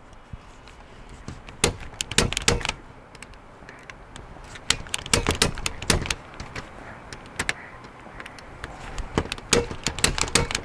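Klein punchdown tool fitted with a cutting blade snapping as it punches wire pairs down into the patch panel's terminals and trims off the excess. Sharp clicks come in three quick clusters a few seconds apart.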